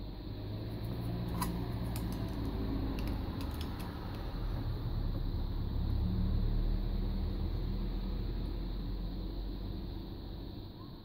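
Steady low rumble, with a few small faint clicks in the first few seconds as small headphone plug parts are handled.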